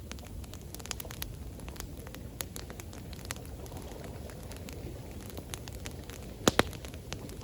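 Wood campfire crackling with scattered sharp pops, two of them loud about six and a half seconds in, over a steady low rush of running water.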